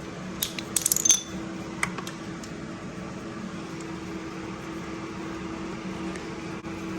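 A few light metallic clinks about a second in, and one more shortly after, as the loosened oil drain bolt is removed from a Honda TRX450 engine. Under them runs a steady hum.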